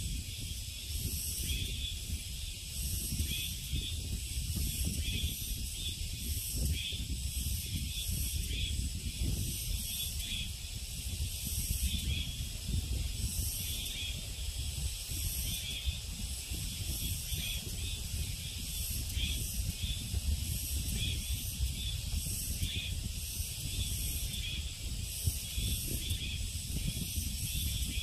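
Summer forest ambience: a steady, high-pitched insect chorus that swells and pulses, over a low rumble of wind on the microphone.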